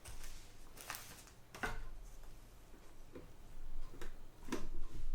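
Handling noise as the calculator is worked on and moved: about five scattered clicks and knocks, one every second or so.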